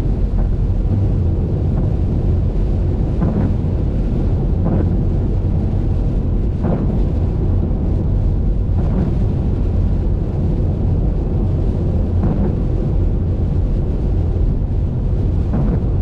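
Steady low rumble of a car driving on a wet highway: road and wind noise picked up by a GoPro, with faint short sounds every second or few.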